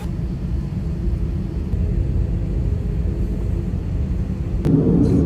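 Airliner cabin noise: the steady low rumble of the jet engines and airflow heard from inside the cabin, stepping up louder about four and a half seconds in.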